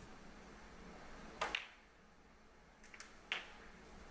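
Sharp clicks of snooker balls: a cue tip striking the cue ball and the balls colliding as a red is potted. A pair of clicks comes about a second and a half in and a few more around three seconds in.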